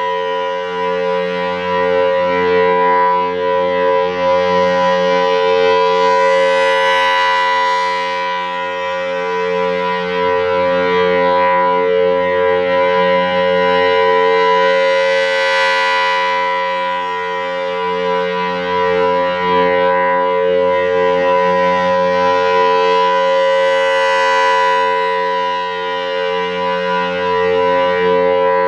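Federal Signal Thunderbolt 1000 outdoor warning siren sounding a steady full-alert tone. The sound swells and brightens about every eight and a half seconds as the rotating horn sweeps past.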